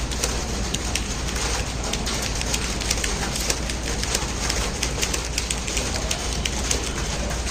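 Computer keyboard typed on quickly: a dense, irregular run of key clicks over a steady low hum.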